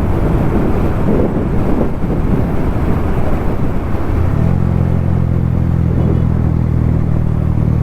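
Bajaj Pulsar NS200's single-cylinder engine through an aftermarket full-system exhaust, ridden with a deep, loud bass note. It sounds rougher at first, then settles about halfway through into a steady drone at constant revs.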